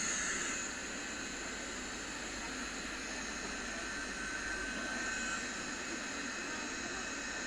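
LC 3000 D hot air welding machine running steadily, its fan blowing hot air at full strength through the nozzle as the machine drives itself along the seam. It makes an even, airy rush with a faint high whine.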